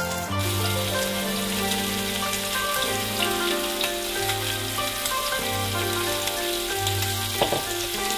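Background music with sustained notes and a slowly changing bass line, over a steady crackling sizzle of food frying in hot oil.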